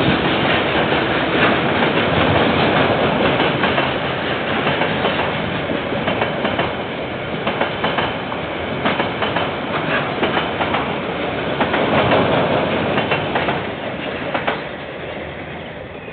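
KiwiRail freight wagons rolling past on the rail line, a steady rumble with wheels clicking over the rail joints. The noise falls away over the last couple of seconds as the end of the train goes by.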